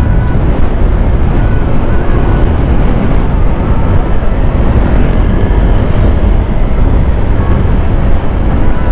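Steady wind buffeting on the microphone over the running single-cylinder engine of a Honda Airblade 150 scooter cruising at about 80 km/h.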